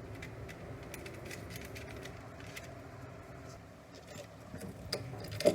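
Faint light clicks and scrapes of a screwdriver and electrical wires being worked into the terminals of a wall power socket, over a steady low hum.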